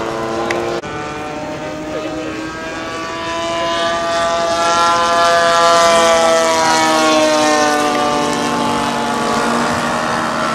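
Radio-controlled propeller model airplane's engine buzzing in flight. It swells to its loudest about halfway through, then fades with its pitch falling as the plane passes.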